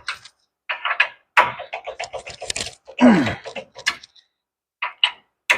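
Irregular metallic clatter, knocks and scrapes of hand tools as a socket stuck on a rusted tie rod end nut is worked at, with a short falling groan about three seconds in.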